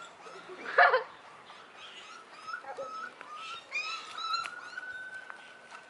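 Small puppy whimpering and yipping in high, thin calls, with a loud short squeal about a second in and a long drawn-out whine near the end.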